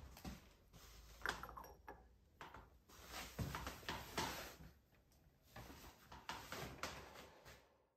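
Light taps and knocks of a turned brass box being handled and set down on the lathe's metal bed, with a low thump about three and a half seconds in, fading out near the end.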